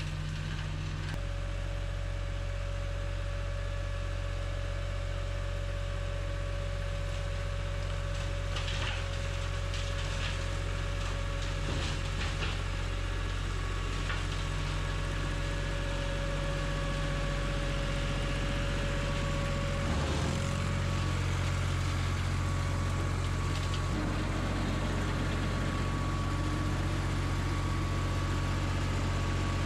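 Lamborghini tractor's diesel engine running steadily while the tractor drives a rear flail mower along the trail, with a steady whine over the engine note; it grows slowly louder as the tractor comes near.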